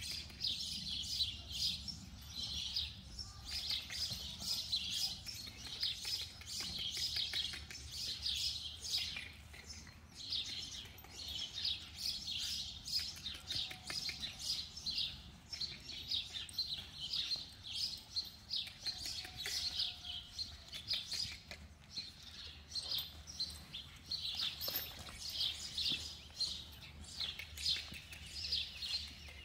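Many small birds chirping without a break, a dense run of short, high chirps over a faint steady low hum.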